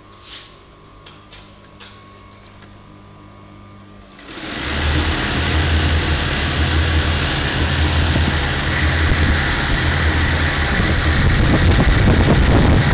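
Sun Star three-head hair-weft sewing machine starting up about four seconds in and then running steadily at speed with a loud, dense mechanical whirr; before it starts there is only a low steady hum and a few light clicks.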